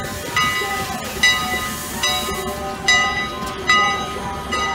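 Steam locomotive No. 89's bell ringing as the engine moves slowly past the platform: a clear ringing stroke about every 0.8 seconds, five in all, over the engine's low rumble and a light hiss of steam.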